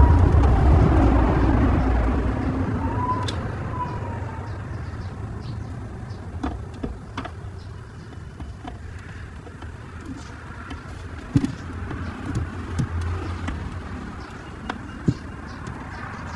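Low rumble of a passing motor vehicle, loud at first and fading away over the first several seconds, followed by scattered small clicks and taps.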